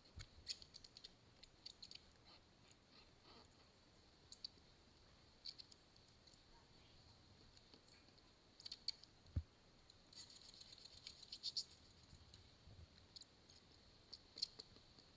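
Faint, irregular clicking and light scratching in clusters, with one short low thump about nine seconds in.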